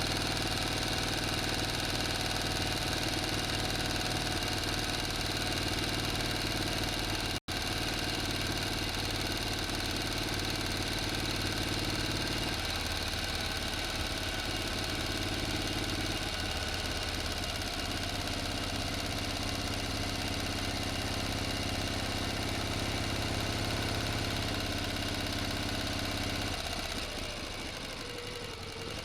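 Engine running steadily, with a very brief dropout about seven seconds in. Near the end it gets a little quieter and dips slightly in pitch.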